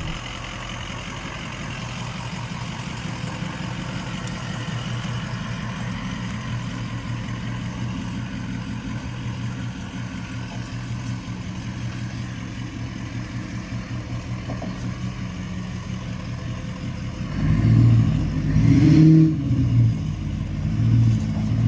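Full-size 4x4 truck engine running steadily at low speed while crawling a trail. About two-thirds of the way in it is given more throttle: it gets louder, rises briefly in pitch, then surges unevenly under load.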